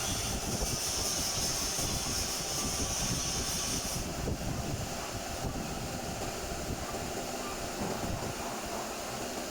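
Steady workshop machine noise, with a high hiss over it that cuts off suddenly about four seconds in.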